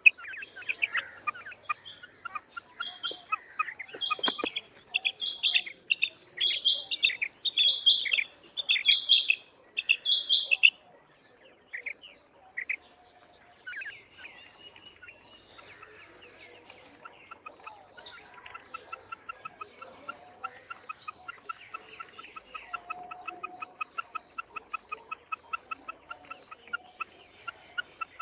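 Female quail calling: a run of loud, sharp repeated calls in the first ten seconds or so, then, after a quieter stretch, a long fast series of soft notes, several a second.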